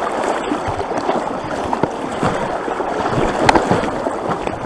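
Shallow creek water rushing and gurgling over rocks and around logs, a steady wash of running water. A small click comes about three and a half seconds in.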